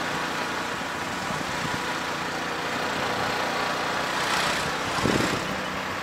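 Auto-rickshaw (tuk-tuk) engine running steadily as it drives, heard from the passenger seat inside the cab. A louder rush of noise swells about four seconds in, and a brief louder rumble comes about five seconds in.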